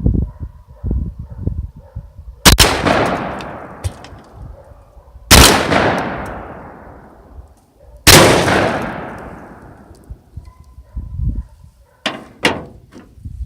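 Three blasts from a 12-gauge shotgun firing number 5 steel shot, about three seconds apart, each ringing out and dying away over a couple of seconds. A couple of short, sharp clicks follow near the end.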